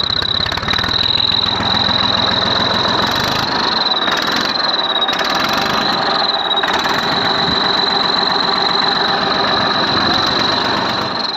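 Massey Ferguson 1035 tractor's three-cylinder diesel engine running, with a steady high-pitched whistle over it that sounds like a turbocharger, though the engine has no turbo. The whistle wavers slightly in pitch partway through.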